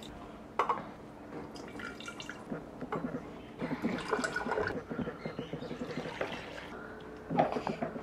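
Orange juice trickling and dripping into a glass jar from a hand-lever citrus press, with irregular small knocks and clicks from the press and the fruit.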